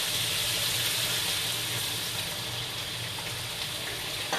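Chili paste (sambal) sizzling steadily in hot oil in a wok, cooked to the stage where the oil separates from the paste.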